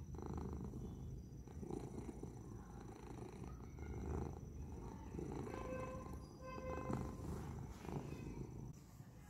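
Domestic cat purring close up: a soft, low rumble that swells and fades every second or two with its breathing.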